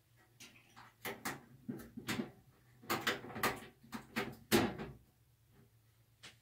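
Parts of a steel toolbox being handled and fitted: a run of sharp knocks and clunks over about four seconds, then quieter.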